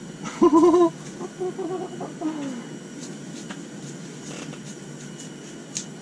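A person's wordless cries: a wavering call about half a second in, then shorter calls and a falling one over the next second and a half. Under them runs the steady hiss of a propane heater, with a few faint clicks later on.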